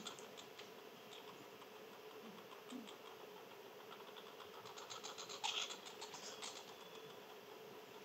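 An animal feeding on seeds at close range: a run of quick, light cracking clicks, scattered at first and thickest from about five to six and a half seconds in, over a faint steady hum.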